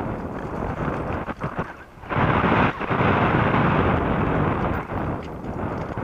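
Wind buffeting the camera microphone and a mountain bike rattling and jolting over a rocky trail on a descent, louder from about two seconds in.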